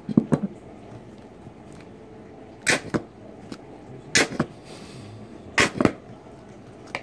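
Plastic squeeze bottle of mayonnaise squirting onto a bun in short spurts. There are four bouts of spurts, most of them in quick pairs.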